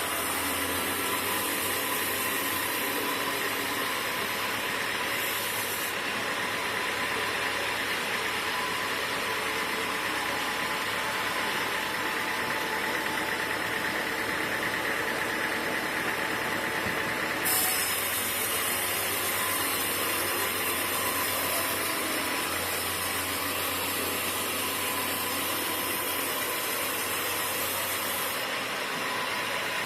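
Sawmill machinery running steadily, a constant mechanical hum with a thin steady whine over it. The high hiss drops away about six seconds in and returns near seventeen seconds, with a brief knock as it does.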